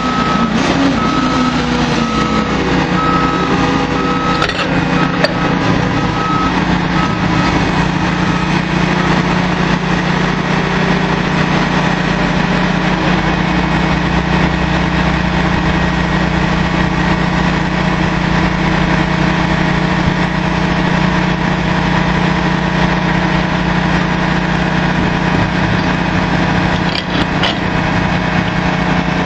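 Drilling rig machinery running with a loud, steady engine drone. A high beep repeats over the first several seconds, with a short falling whine near the start.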